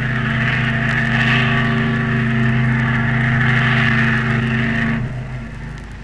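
The ship's whistle of the RMS Lady of Mann sounding one long, deep blast over a low steady hum. The blast fades out about five seconds in.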